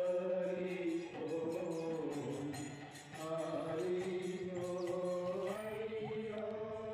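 Devotional chant sung in long held notes that step up and down in pitch, with light percussion ticks.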